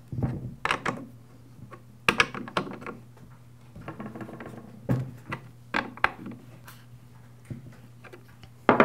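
Scattered sharp metal clicks and knocks of a scrench working on the side-cover nuts of a Poulan chainsaw as they are tightened, then the saw being handled on a wooden workbench, with a louder knock near the end.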